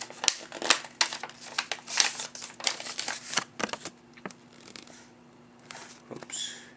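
Paper rustling and crinkling as a folded printed slip is unfolded and handled: many quick, sharp rustles for about the first four seconds, then quieter, with one more short rustle near the end.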